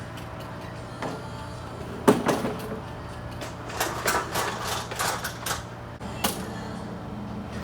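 Sharp knocks and clatter from handling the lawn mower while getting ready to start it, over a steady low hum: one loud knock about two seconds in, then a quick run of clacks.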